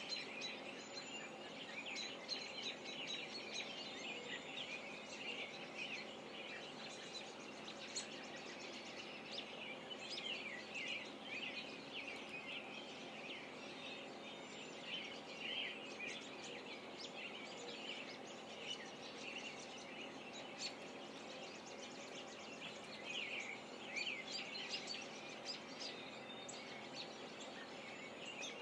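A chorus of many songbirds singing and chirping at once, dense short high chirps and trills throughout, over a faint steady hum.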